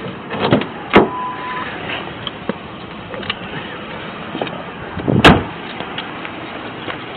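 Body-worn camera knocking and rubbing as its wearer moves about a patrol car, with a sharp knock about a second in followed by a short beep. A heavy car door slams shut a little after five seconds in.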